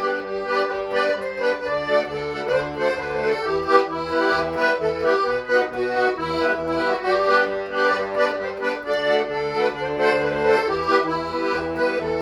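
Instrumental break in a folk song: a melody with held chords over steady, pulsing bass notes.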